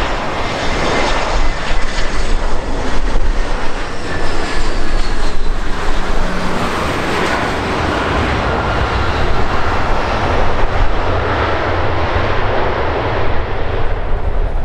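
Airbus A321 jet airliner's engines on approach and landing: a loud, steady jet roar with a low rumble and a faint whine that slowly falls in pitch.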